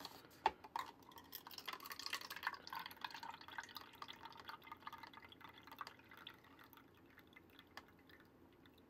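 Drink trickling from the spout of a 1993 Mattel Happy Meal Magic Drink Fountain toy dispenser into a small paper cup. The faint, dripping pour thins out over the last few seconds.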